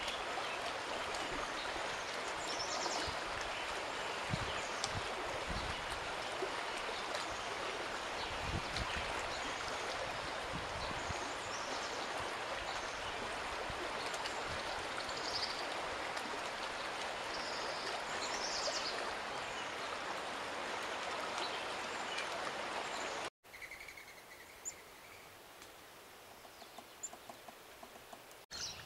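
Shallow river rushing steadily over a stony bed, with birds chirping now and then above the water. Near the end it cuts off suddenly to a much quieter outdoor background with a few faint bird calls.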